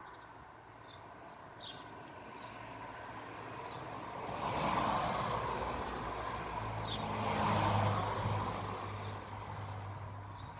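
A motor vehicle passing: its noise swells, dips and swells again, with a low engine hum in the second half, then fades.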